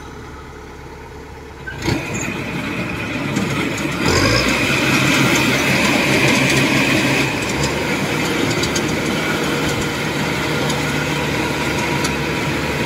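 Kubota DC-105 combine harvester's diesel engine running under load as the tracked machine drives off its steel crossing ramps into the rice field. The sound jumps louder with a knock about two seconds in, swells again at four seconds, then holds steady.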